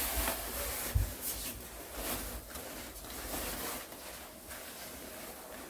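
Nylon shell of a long down-padded coat rustling and swishing in short irregular bursts as the wearer moves and pulls up the hood, with a soft low thump about a second in.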